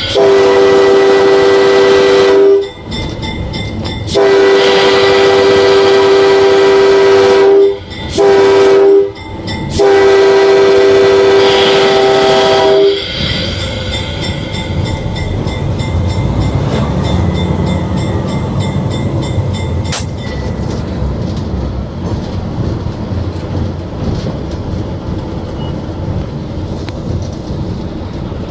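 Locomotive horn sounding the grade-crossing signal: two long blasts, a short one and a long one. After it the locomotive runs on with a steady rumble and some clickety-clack from the wheels on the rails, heard from the cab.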